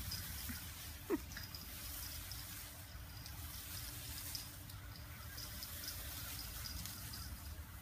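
Water spraying from a garden hose onto a lawn, a steady hiss, with a short falling squeak about a second in.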